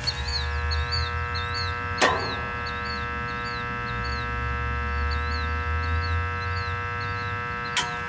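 Steady electrical buzz made of many even tones, with a sharp click about two seconds in and another near the end. A bird repeats a short chirp about twice a second.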